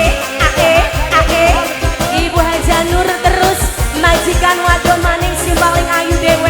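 Live tarling dangdut band music: a fast, steady drum beat under a bending, ornamented lead melody.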